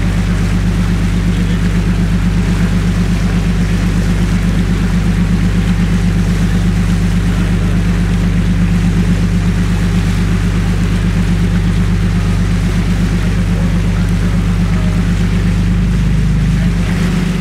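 Sightseeing boat's engine running steadily under way, a loud low drone with water rushing past the hull. The engine note shifts slightly near the end as the boat eases toward its pier.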